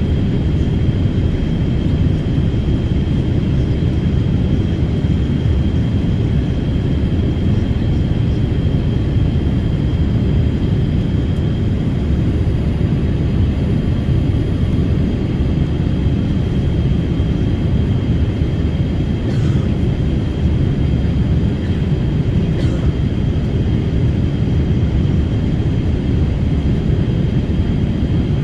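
Passenger airliner cabin noise: a steady low rush of engines and airflow with a thin, high steady whine above it.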